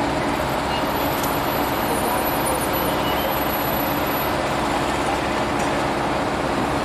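A large vehicle engine idling steadily, a low, even drone.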